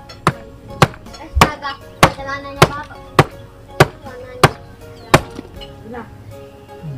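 Nine sharp chopping blows at an even pace, about one every 0.6 s, stopping a little past five seconds in.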